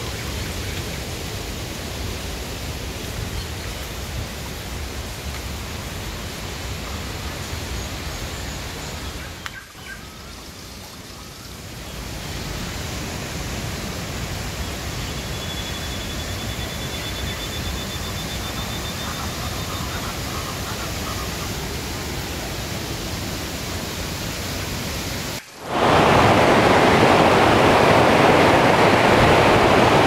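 Steady rush of a rain-swollen waterfall falling with heavy force, heard more distantly at first. About 25 seconds in it cuts to a much louder rush, right beside the cascade.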